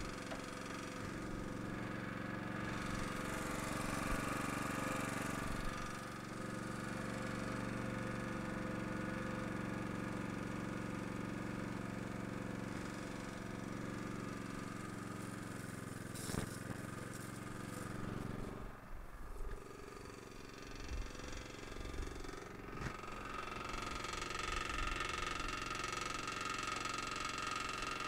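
Small gasoline engine of a LeeBoy L150 crack sealer running steadily, driving the material pump while solvent is pumped out through the sealing wand into a bucket. A single sharp knock sounds about sixteen seconds in, and a steady high whine joins the engine near the end.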